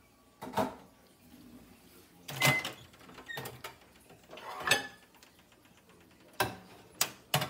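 Metal pots and a cooking spatula knocking and clanking on an electric stovetop: about six separate clanks, some ringing briefly.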